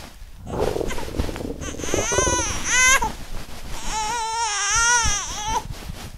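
Two long, wavering high-pitched wails, the first about two seconds in and the second about four seconds in, over a low rumble at the start.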